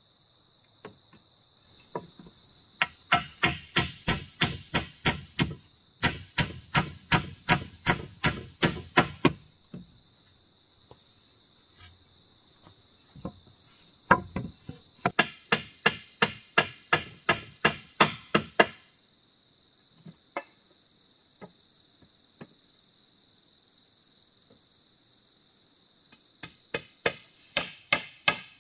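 Runs of quick, sharp tool strikes on wood, about three or four a second, each run lasting a few seconds with pauses between. A steady high insect drone fills the gaps.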